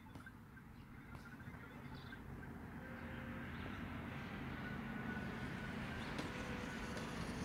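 A motor vehicle's engine rumble, faint at first and growing steadily louder over several seconds, with a few faint bird chirps at the start.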